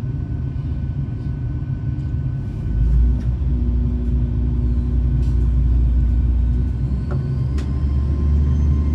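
Class 802 bi-mode train heard from inside the carriage as it begins to pull away: a steady low rumble from the underfloor diesel engines steps up about three seconds in. A faint rising whine joins near the end, with a single sharp click shortly before.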